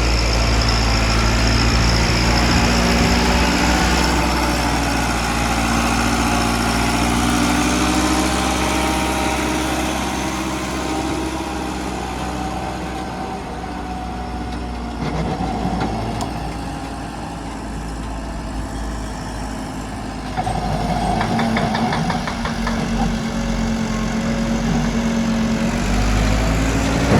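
A heavy machine's engine running steadily, its pitch and loudness shifting slightly as it works, with a short burst of rattling about three-quarters of the way through.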